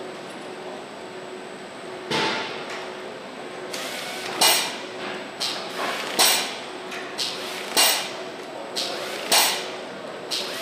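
Engine assembly line: a steady machinery hum, then from about two seconds in a run of short, sharp metallic bursts about every second, from an overhead power nut runner tightening bolts on an engine block's connecting rods.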